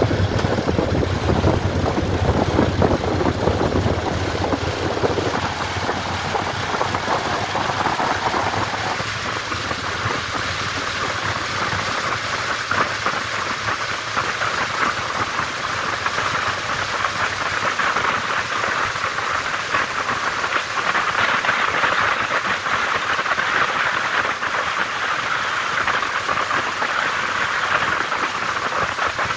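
Riding noise from a moving Honda motorcycle picked up by a camera mounted on the bike: a steady rush of wind over the microphone with the engine's low note underneath. After about five seconds the engine note fades back and a higher, hissing wind rush takes over.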